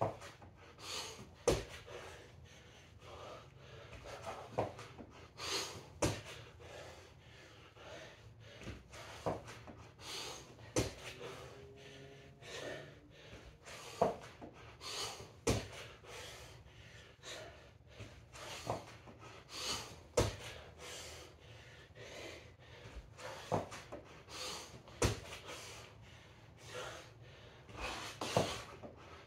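A man breathing hard during push-up pumps, blowing out a sharp breath about every second and a half in time with the reps, with soft thuds among them.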